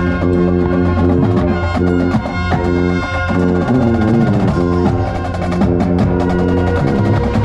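Drum and bugle corps brass and battery percussion playing loud sustained chords, heard from inside the contrabass bugle section with the low brass notes strongest. About halfway through, the chord slides downward in pitch before the sustained notes resume.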